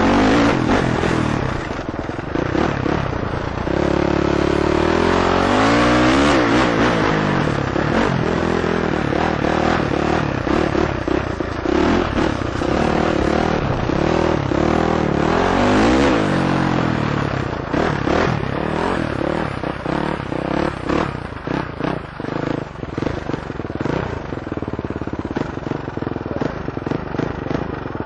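KTM 450 single-cylinder four-stroke dirt bike engine revving up and down repeatedly while riding over rough dirt, with clattering knocks throughout. The revs ease off over the last several seconds.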